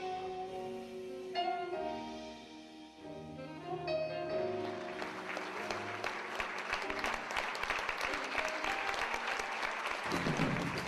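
A slow saxophone phrase with long held notes, then from about five seconds in an audience applauding, with new music and low drum beats coming in near the end.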